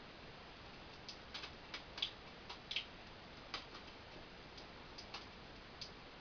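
Light, sharp clicks and taps at an uneven pace, starting about a second in, over a faint steady hiss.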